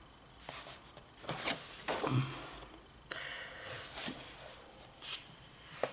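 Pages of a paper colouring book being turned and handled: a string of short, soft paper rustles and light taps, with a longer rustle a little past the middle.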